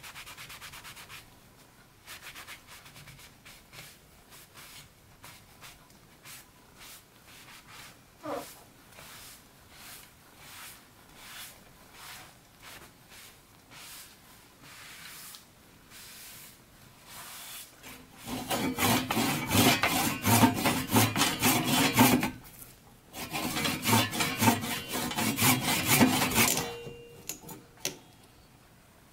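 Cloth being rubbed over the turned tree-root wood vessel: soft, regular wiping strokes, then two stretches of faster, much louder rubbing near the end.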